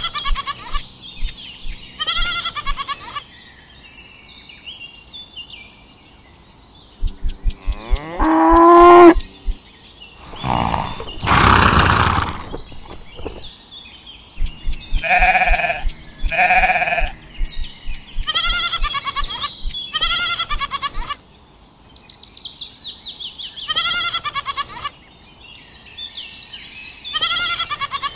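Recorded farm-animal calls, mostly short bleats repeated in bursts with short gaps between them, and a longer, louder call about eight to twelve seconds in.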